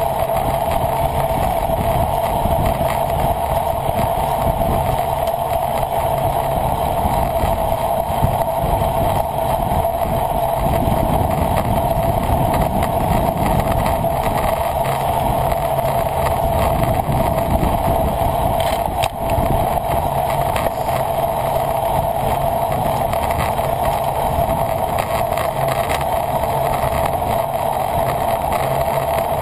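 Steady rush of wind and road noise from a road bicycle ridden at speed in a race.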